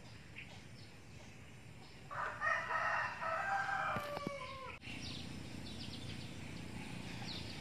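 A rooster crowing once. The single long call starts about two seconds in, lasts roughly two and a half seconds and drops in pitch at the end.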